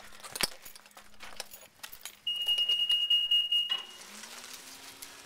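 A loud steady high-pitched beep lasting about a second and a half, then the cellulose insulation blower starting up, its motor hum rising in pitch and settling to a steady drone.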